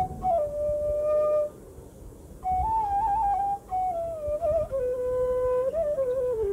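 Background music: a slow solo flute melody that moves in small steps. It breaks off for about a second, a second and a half in, then comes back higher and drifts down.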